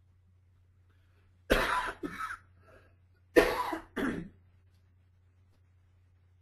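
A person coughing, two coughing bouts about two seconds apart, each a sharp cough followed by a softer one, over a faint steady low hum.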